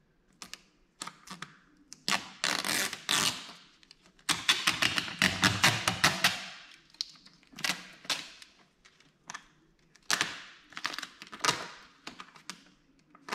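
Vinyl tint film crackling and crinkling in irregular stretches, with sharp clicks and taps, as it is pressed and trimmed with a knife around a car's taillight.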